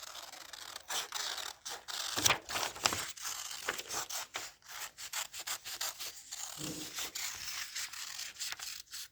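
Scissors cutting out a paper shape: a run of short snips with the paper rustling between them.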